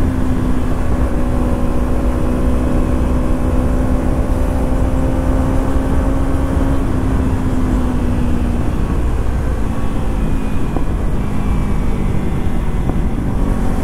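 Kawasaki Ninja 300's parallel-twin engine running at a steady cruise, with heavy wind rush on the microphone. The engine note drops a little about two-thirds of the way through as the throttle eases.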